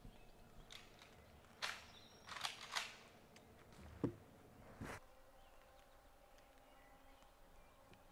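A shotgun fired at a turkey gobbler, then the downed bird flopping and beating its wings in dry leaves: a handful of sharp, noisy bursts over about three seconds.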